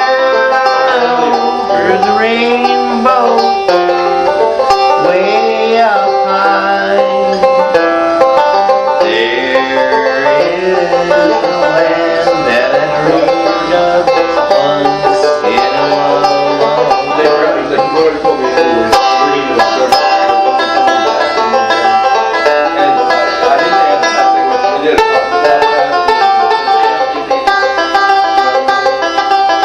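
Live music with rapid plucked-string picking in a bluegrass style, playing steadily throughout.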